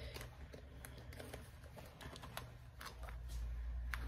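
Fingers working a blush compact out of its tight cardboard box: scattered light clicks and scratches of cardboard and plastic.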